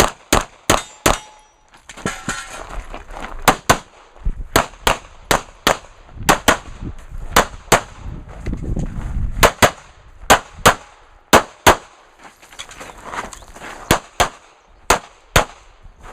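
Pistol shots in a USPSA practical-shooting course of fire after the start beep: about two dozen sharp shots, mostly fired in quick pairs, with short pauses between the groups.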